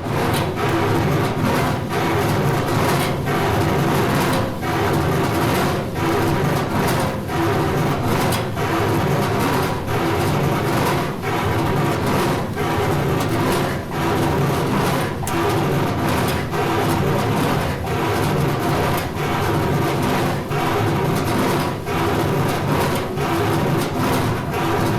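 Heavy machinery running steadily, with a regular clack about once every second or so.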